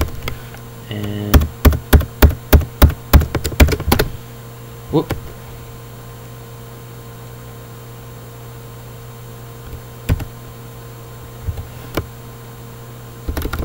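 Computer keyboard being typed on: a quick run of about ten loud key clacks in the first four seconds, single key presses around ten and twelve seconds in, and more typing at the very end. A steady low hum sits underneath.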